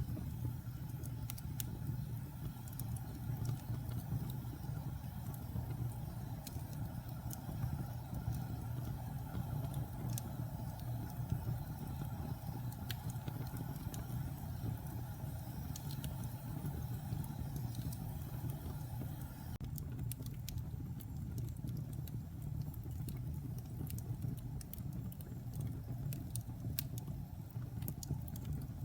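Wood fire burning in a fireplace: a steady low rumble with scattered sharp crackles and small pops from the burning logs.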